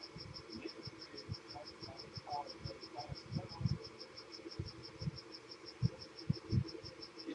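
A cricket chirping in a steady, even pulse, about six or seven chirps a second. Scattered soft low thumps and knocks sound under it, the loudest two about six seconds in.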